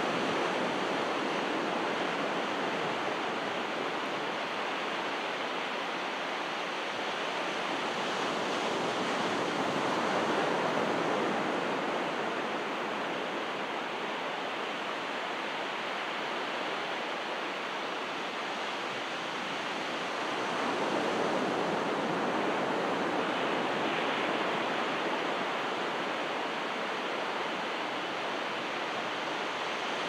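Calm ocean waves breaking and washing up on the beach as a steady surf hiss. It swells louder twice, about ten seconds apart, as larger waves come in.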